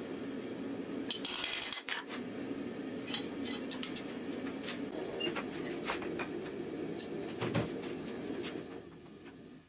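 Light metallic clinks and rattles of a forged steel axe head and blacksmith's tongs handled on an anvil, some ringing briefly, over a steady low hum.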